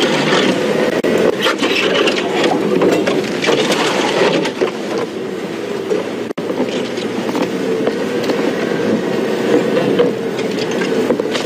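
Open safari vehicle's engine running as it drives off-road through dry grass and bush, with grass and branches scraping and rubbing along the body and scattered clicks and rattles.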